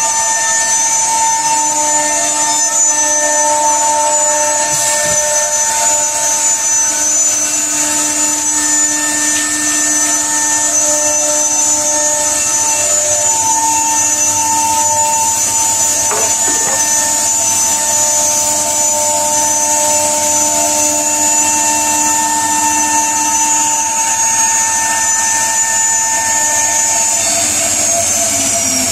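Single-spindle CNC router cutting a wood panel: the spindle's steady high whine over the rasp of the bit in the wood and the tones of the axis motors. Near the end the motor tones stop and the spindle whine falls as it winds down.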